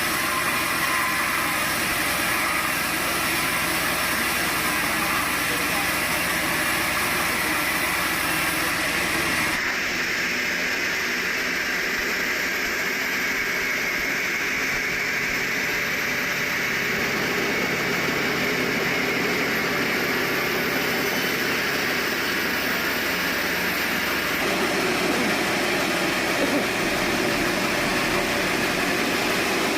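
Sawmill machinery running steadily, a continuous engine-like mechanical noise, with abrupt changes in its character about a third of the way in and again near three quarters of the way through.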